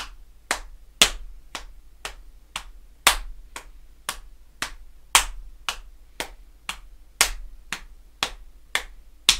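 Hands slapping on the thighs in a steady single paradiddle (right-left-right-right, left-right-left-left), about two slaps a second, with the first slap of each group of four played louder.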